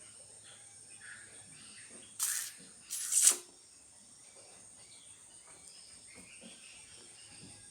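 Steady high-pitched chirring of crickets or other night insects, with two short loud rushing noises about two and three seconds in.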